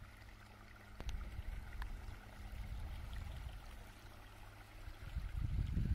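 Small alpine creek trickling faintly under wind rumbling on the microphone, the wind gusting louder about five seconds in.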